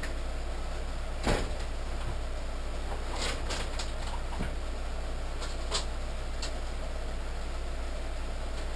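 Handling noise over a steady low hum: one sharp knock about a second in, then a scatter of light clicks and taps a couple of seconds later.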